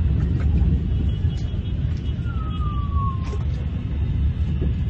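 Steady low rumbling noise, like wind on the microphone, with a single thin whistle-like tone falling in pitch for about a second near the middle.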